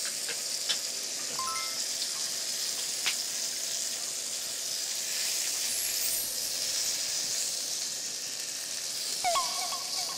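Beef rolls sizzling steadily in a grill pan on a portable gas burner, with a few sharp clicks of utensils against the pan and plates.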